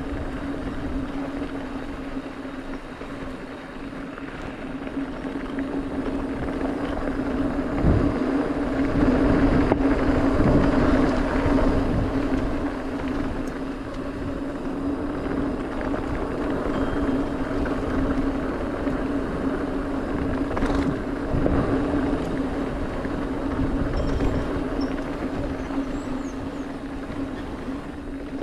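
Mountain bike coasting fast down a dirt fire road: a steady buzzing hum from the rolling bike, with wind rush and a few thumps and rattles over bumps. It gets louder for a few seconds about a third of the way in.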